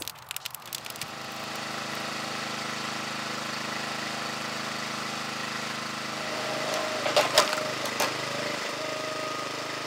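Small gas engine of a Huskee 35-ton hydraulic log splitter running steadily. About six seconds in its note dips slightly as the wedge is forced into the log, and the wood cracks with a few sharp snaps around seven to eight seconds in.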